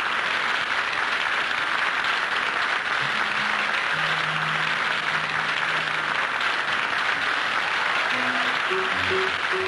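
Audience applauding steadily, with a few held low instrument notes midway and a string of short pitched notes near the end as the band starts to play.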